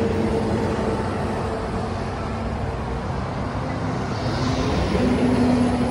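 Road traffic: a steady noise of cars going by, with a swell of tyre hiss about four seconds in as one passes.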